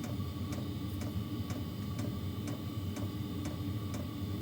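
Small diesel air heater running: its fuel pump ticks evenly about twice a second over the steady hum of its blower.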